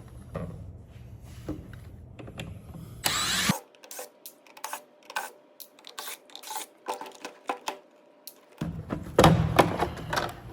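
Hands taking apart a UPS unit: irregular clicks, knocks and rubbing of plastic and metal parts, with a short loud scrape about three seconds in and a denser clatter near the end.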